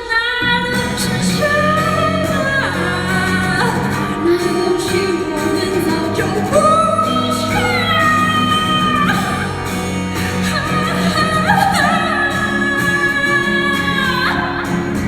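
A pop song: a voice singing long held notes that slide between pitches, over a steady instrumental accompaniment.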